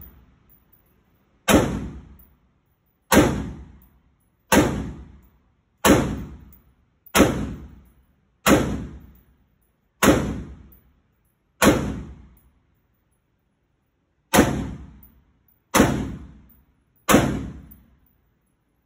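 AK-pattern rifle fired in slow, single shots: eleven shots, about one every one and a half seconds, with a longer pause about two-thirds of the way through. Each shot rings out in the echo of an indoor range.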